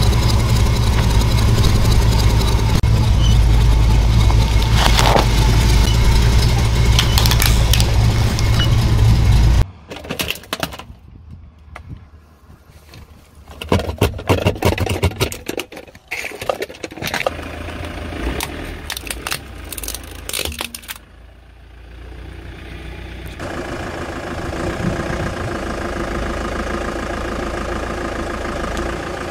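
A 4x4's engine running low and steady, cutting off suddenly about ten seconds in. Then sharp cracks and crunches of hollow plastic pumpkins flattening under a car tyre, and in the last few seconds a car engine idling steadily.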